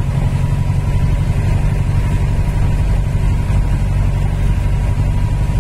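A car driving along, giving a steady low rumble of engine and road noise.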